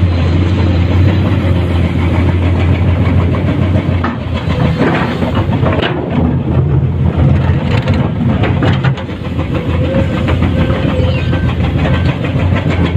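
Komatsu PC210-10 hydraulic excavator's diesel engine running steadily under digging load, with a run of knocks and scraping from about 4 to 9 seconds in as the bucket works the pumice and limestone.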